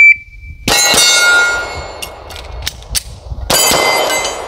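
A shot timer beeps, then a Smith & Wesson M&P 40 .40 S&W pistol fires twice in quick succession at steel targets that ring after each hit. A few sharp clicks of a magazine change follow, then another shot rings steel again near the end.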